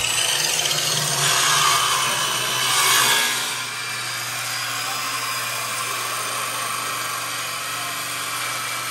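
Handheld electric circular saw cutting wood plank offcuts. The cut is loudest for the first three seconds or so, then the saw runs on steadily and a little quieter.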